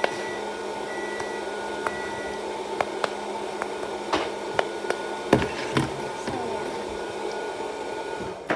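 Steady room hum from a running machine or appliance, with a faint tone switching on and off. Over it come scattered light clicks and a few soft knocks from small objects being handled, busiest around the middle.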